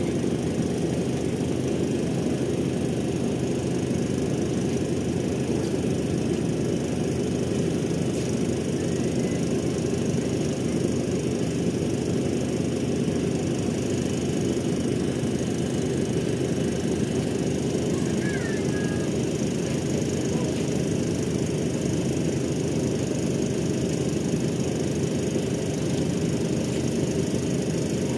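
A ship's engine running with a steady low rumble that does not change.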